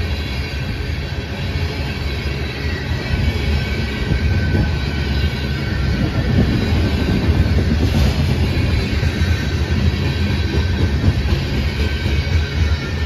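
Freight train of covered hopper cars rolling past close by: a steady, loud rumble of steel wheels on the rails.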